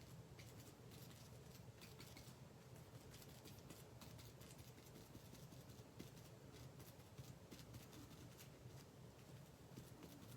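Near silence: faint room tone with a low steady hum and scattered light ticks and taps.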